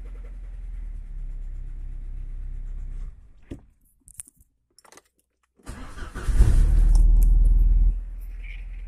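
Car engine with a worn, knocking crankshaft bearing shell idling with a regular low knock, then switched off about three seconds in. After about two seconds of quiet it is cranked and restarts, running loud for a couple of seconds before dropping back to idle.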